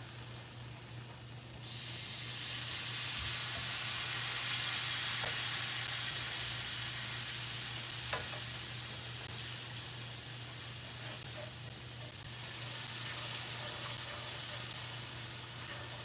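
Hot water poured into a hot cast-iron skillet of browned ground meat and flour starts sizzling suddenly about two seconds in. The sizzle goes on, easing and swelling again, while a spatula stirs the mixture: the pan is being deglazed to make a gravy from the flour roux.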